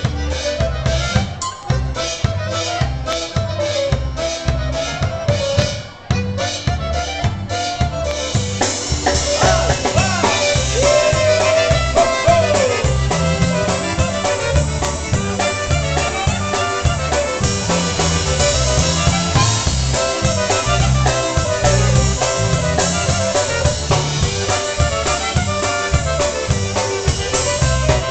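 Live polka band playing over a steady drum-kit beat. About eight seconds in, the full band fills in, with the melody carried by concertina, clarinet and trumpet.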